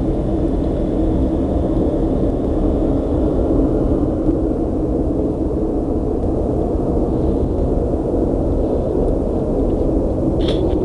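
Steady low rumble-hum from the night sky, the background sound that the recordist takes for a strange mechanical noise. A faint high tone fades out a few seconds in, and a short click sounds near the end.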